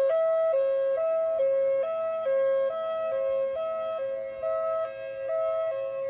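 Federal Signal Thunderbolt 1003 outdoor warning siren sounding its Hi-Lo fire signal: two steady pitches alternating high and low, about two changes a second, the loudness swelling and fading. It is the siren's weekly test.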